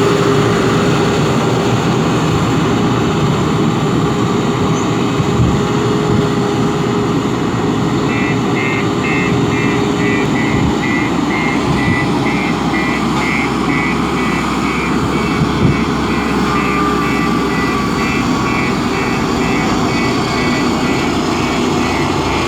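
JCB backhoe loader's diesel engine running steadily under work. From about a third of the way in, a repeated electronic beeping sounds, about two beeps a second.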